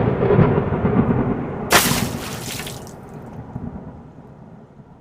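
A deep, thunder-like rumble that starts suddenly, with a sharp hissing crack just under two seconds in, then slowly dies away.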